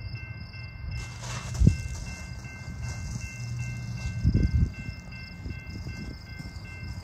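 Freight train rumbling along the rails: a steady low rumble with a heavier thump a little over a second in and a double thump about four seconds in, under a faint steady high whine.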